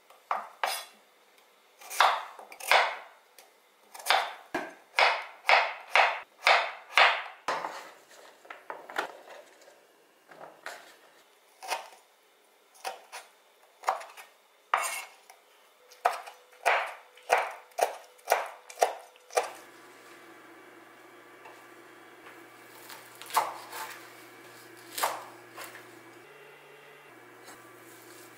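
Kitchen knife chopping vegetables on a bamboo cutting board: sharp knocks of the blade striking the wood, in quick runs of about two a second in the first half, sparser later. Past the middle a faint steady hum comes in under the occasional knocks.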